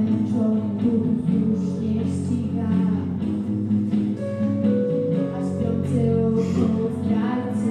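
A young woman singing a song into a microphone over strummed acoustic guitar accompaniment.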